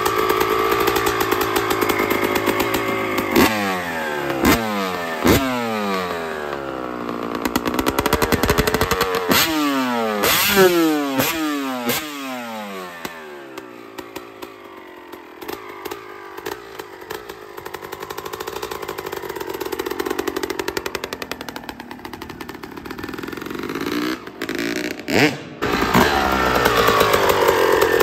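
Freshly rebuilt Suzuki RM250 two-stroke single-cylinder dirt bike engine, with a Pro Circuit fatty expansion chamber and a repacked silencer, running and being revved. Several quick throttle blips come one after another in the first half, each rising sharply in pitch and dropping back. It then settles to a quieter, lower idle and picks up louder again near the end.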